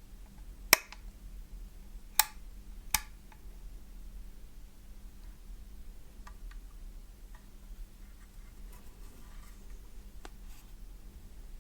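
Three sharp single clicks about a second, two seconds and three seconds in, then a few faint light ticks, from the Lemokey L1 mechanical keyboard being handled or its keys pressed one at a time.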